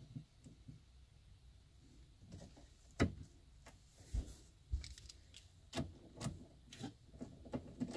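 Scattered clicks and knocks of hand tools and metal hardware being handled at a car battery while the battery terminals are refitted, the loudest knock about three seconds in.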